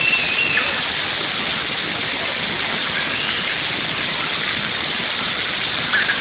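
Splash pad fountain jets spraying water, a steady hiss, with a short high-pitched sound near the start and again near the end.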